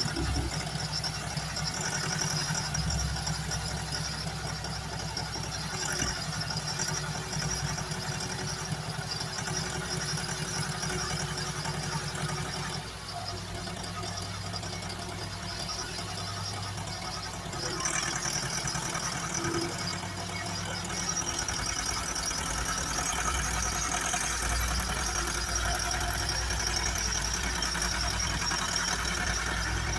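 Hymac 370C backhoe loader's diesel engine running steadily. Its note shifts about thirteen seconds in and again about eighteen seconds in.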